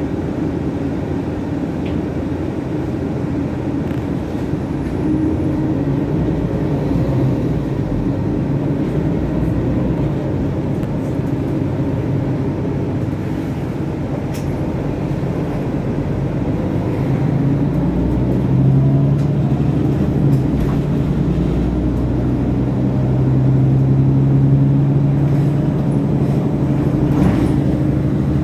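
City bus heard from inside the passenger cabin while driving: a steady low drive hum and road rumble. The low hum grows louder from about two-thirds of the way through.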